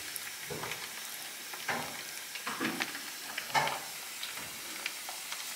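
A fork stirring thick tzatziki in a plastic tub: several short, wet squelches and scrapes against the plastic over a steady hiss.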